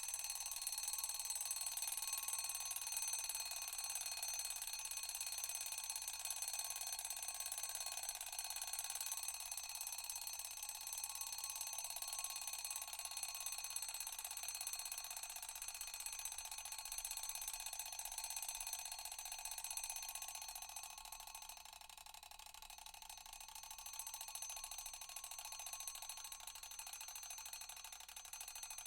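Alarm ringing continuously, a high ring of many tones at once without on-off beeping, dipping a little in level about two-thirds of the way through.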